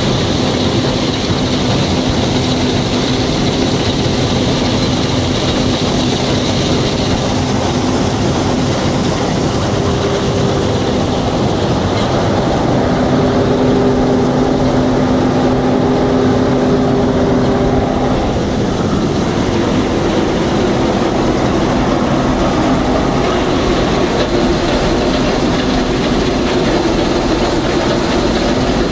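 John Deere 1065 combine harvester running steadily while harvesting, a dense mechanical din with a droning hum that fades and returns.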